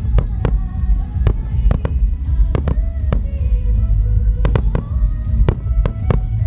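Starmine fireworks barrage: a rapid, irregular run of sharp aerial shell bursts over a deep continuous rumble, with music playing underneath.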